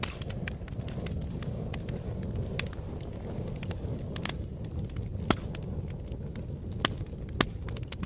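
Wood fire burning: a steady low rumble of flames with frequent sharp crackles and pops, three louder pops in the second half.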